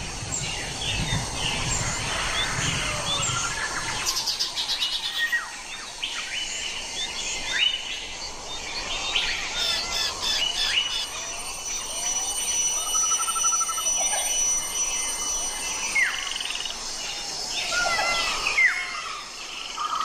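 Many small birds chirping together, a dense mix of short rising and falling chirps throughout, with a brief trill about two-thirds of the way through. A low rumble sits under the first few seconds.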